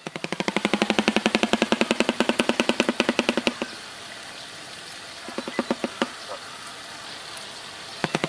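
Shoebill clattering its bill: a rapid, even run of claps, about eight a second, that stops about three and a half seconds in, then a few scattered claps, and the clattering starts again near the end.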